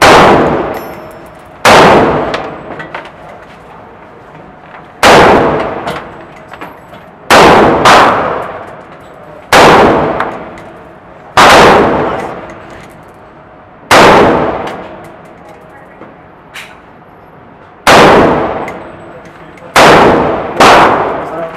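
AR-15 rifle firing single shots at an uneven pace, about a dozen in all, some close pairs. Each shot has a sharp crack and a long ringing echo off the walls of an indoor range.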